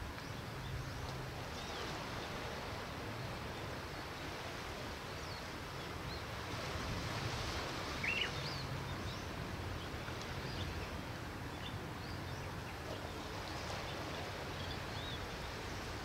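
Calm rocky-shore ambience: a steady wash of gentle waves with faint small-bird chirps scattered through, one louder chirp about eight seconds in, over a faint low rumble.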